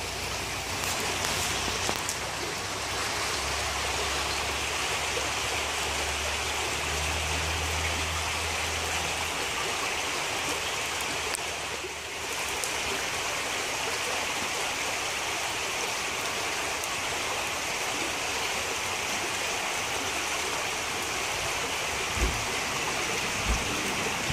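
Creek water flowing steadily over a riffle, an even rushing hiss. A low hum comes in for a few seconds about four seconds in.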